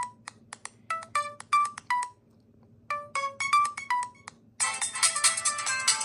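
HTC phone ringtones. A short melody of quick, bright notes plays twice with a short pause between. About four and a half seconds in, a different, fuller ringtone starts.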